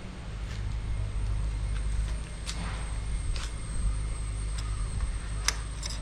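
Bajaj NS200 single-cylinder engine running at idle with sharp, irregular pops and cracks from the exhaust. The owner attributes this to a timing chain problem.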